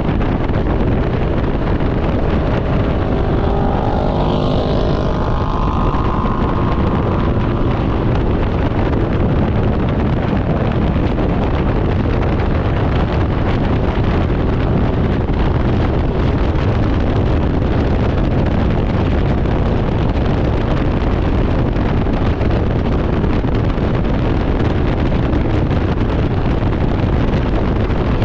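Wind rushing over the microphone with the steady drone of a Can-Am Ryker 900's three-cylinder engine riding at road speed. A brief pitched engine note rises and falls about four seconds in.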